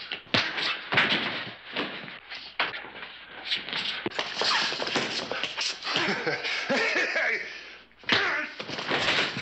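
Fistfight: a rapid string of punch thuds and slams of bodies against walls and furniture, with scuffling in between. The hardest hits land about a second in and again near the end.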